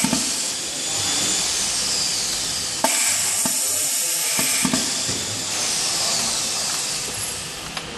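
Compressed air hissing steadily from an air hose being connected to a pneumatic label-folding machine, with a couple of sharp clicks from the fittings. The hiss drops off a little near the end.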